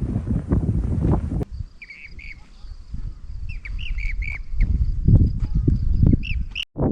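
Strong wind buffeting the microphone, cutting to lighter wind in which a small bird gives several short, repeated chirps; the wind gusts build again near the end.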